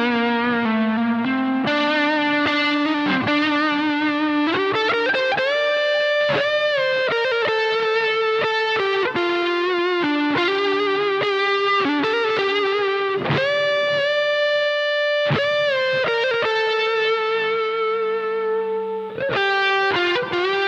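Electric guitar through a JHS AT overdrive pedal into a Bluguitar Amp1, playing a slow, singing lead line: long sustained single notes with wide vibrato, slides between notes and a few quick picked runs.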